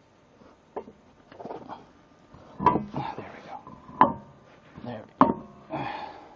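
Three sharp metallic knocks, each with a short ring, about a second apart, with softer scraping between them: a road wheel being worked onto the hub studs of a minivan's front hub.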